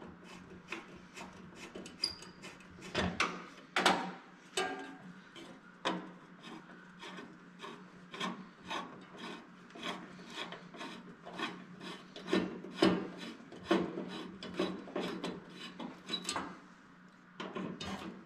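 Headlight adjuster screws being turned by hand into plastic adjuster clips on a headlight bucket: an irregular run of short clicks and rasps, two to four a second, as the screw threads work through the plastic.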